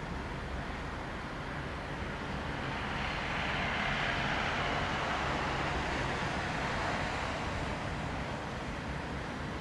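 An inland motor tanker barge passing on the river: a steady low engine rumble under the rush of its wash. The rushing swells for a few seconds in the middle, then eases.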